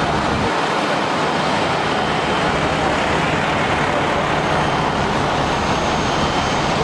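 Steady, loud street noise of running vehicle engines and traffic, an even rumble with no sharp events.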